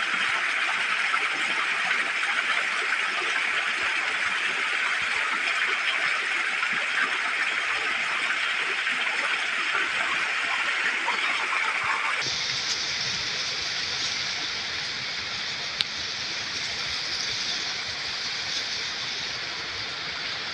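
Jungle ambience recording: a dense, steady wash of sound strongest in the middle-high range. It changes abruptly about twelve seconds in to a different, higher-pitched wash with a low rumble beneath, and a single sharp click comes a few seconds later.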